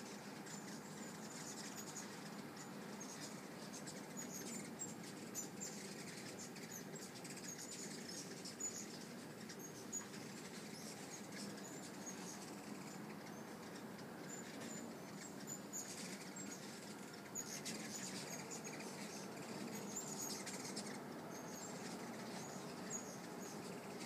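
Ruby-throated hummingbirds calling around the feeders: many short, high chirps scattered throughout, from several birds at once, over a faint steady outdoor hiss.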